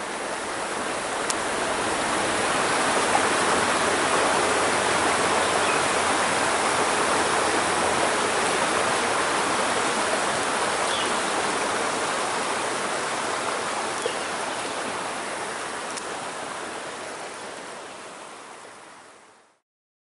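A small stream splashing over rocks in a low cascade, a steady rush of water that swells over the first few seconds and fades out near the end.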